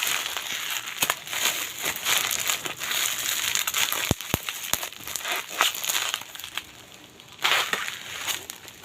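Crinkly packaging rustling and crackling as a parcel is unwrapped by hand, a quieter stretch near the end broken by one more short burst of rustling.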